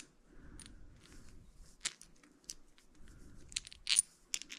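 Scattered sharp clicks and light taps of small metal bike parts and tools being handled, several in quick succession, the loudest about four seconds in.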